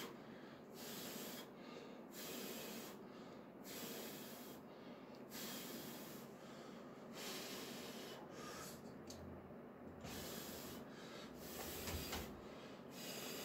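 A lifter's faint, forceful breathing in and out, a breath about every second and a half, while he grips the bar and braces before a maximal partial deadlift.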